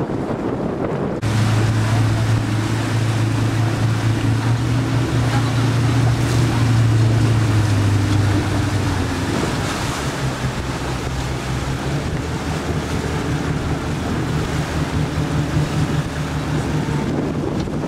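Boat motor running steadily, its low hum changing pitch about eight seconds in, under heavy wind noise on the microphone and rushing water.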